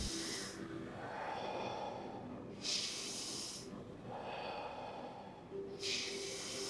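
A person breathing deeply and audibly through the 'fire' breathing exercise, with forceful exhalations. About two full cycles are heard, each a longer, lower rush of air followed by a shorter, sharper hissing breath, roughly one cycle every three seconds.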